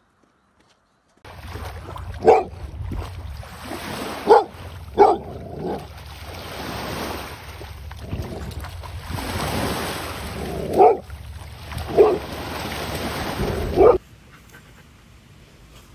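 A dog barking sharply six times, spread unevenly, over the steady wash of waves on a shore. The sound begins after about a second of near silence and cuts off suddenly near the end.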